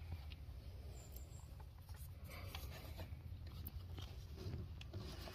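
Faint rubbing and a few light clicks of hands working a replacement fuel injector into its port beneath the wiring harness of a Gen 1 Toyota Prius engine.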